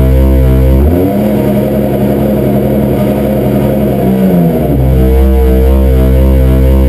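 Loud live industrial electronic music: a heavy bass drone under pulsing, held synthesizer tones. About a second in, the bass drops out for a few seconds and a dense distorted buzzing layer takes over. The drone comes back near five seconds in.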